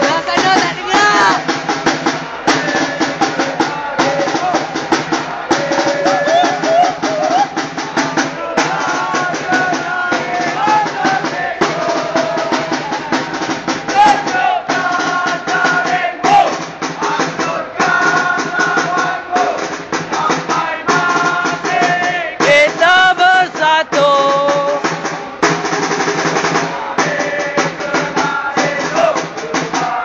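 Football supporters chanting and singing together in the stands over steady, rapid drumming.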